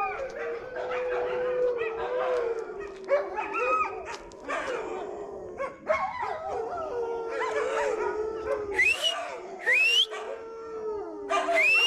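Wolves howling in chorus: several long, wavering howls overlap, and near the end high rising whines and yelps join in.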